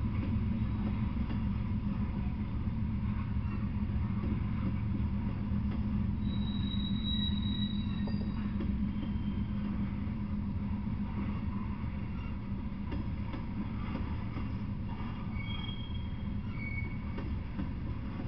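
Freight train of Norfolk Southern covered hopper cars rolling past at steady speed, a continuous low rumble of wheels on rails. A few brief, faint, high-pitched wheel squeals come through, around the middle and again near the end.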